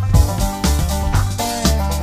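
Upbeat background music with a steady drum beat, heavy bass and sliding pitched notes.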